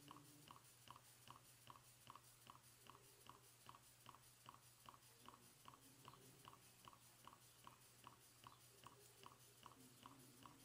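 Twin-cylinder steam engine running steadily: faint, even exhaust puffs at about three a second over a low steady hum.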